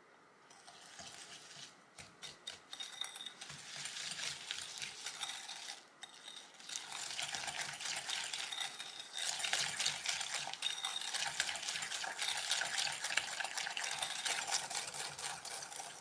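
Wire whisk beating butter and sugar in a glass bowl, creaming them until pale: rapid scraping with the wires clinking against the glass. It starts about a second in with a few separate strokes, pauses briefly near the middle, then goes on steady and fast.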